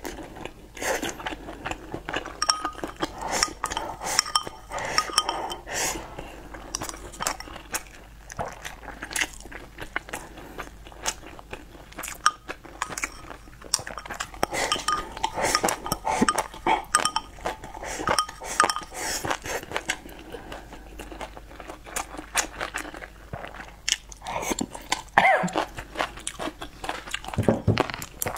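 Close-miked eating sounds: wet chewing and slurping from a bowl, with irregular small clicks of chopsticks against a ceramic bowl.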